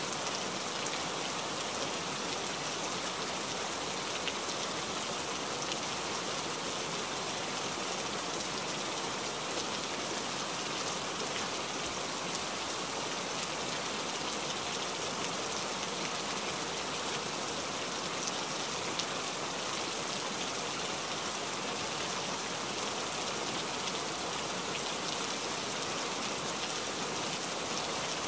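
Steady rain falling, an even hiss that does not change or break.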